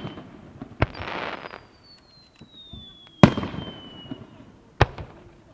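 Aerial fireworks shells bursting: three sharp bangs about a second and a half apart. A long thin whistle slowly falls in pitch between them, and a brief crackling hiss comes about a second in.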